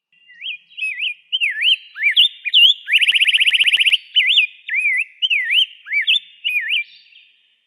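Rose-breasted grosbeak singing a long, sweet warbling song of rising and falling whistled notes, with a fast trill of about a dozen notes a second near the middle.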